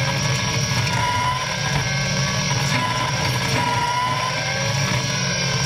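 Caterpillar 297C compact track loader running hard with its hydraulic bush hog, a steady diesel drone under a whining tone that wavers slightly in pitch.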